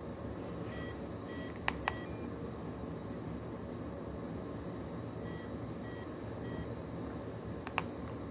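DS1000 portable pulse oximeter giving short high beeps, three of them about 0.6 s apart near the end, in time with a pulse of about 105 a minute. A couple of sharp clicks about two seconds in and another near the end come from its buttons being pressed, over a steady low room hum.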